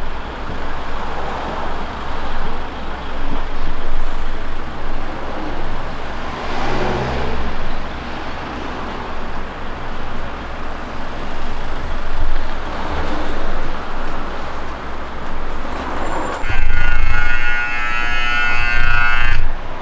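Steady street and traffic noise with a low hum, then about 16 seconds in the buzzer of a hot-patch tyre vulcanizing press sounds one long harsh beep lasting about three seconds. The buzzer signals that the heating cycle, near 200 °C, is finished and the patch must be switched off and left to cool.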